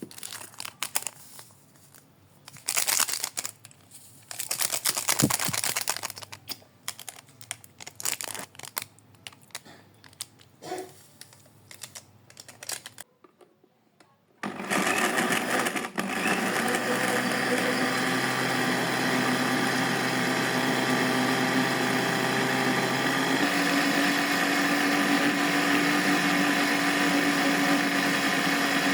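Irregular rustling and clattering handling sounds, then a small electric motor starts about fourteen seconds in and runs steadily with a humming whine, its tone shifting slightly later on.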